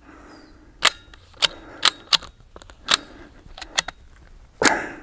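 Bolt of a Sulun Arms Tac-12 straight-pull 12-gauge shotgun being worked by hand to clear a jam, about eight sharp metallic clacks with a louder, longer rattle near the end. The jam comes from a 38-gram buckshot shell that did not cycle through the action.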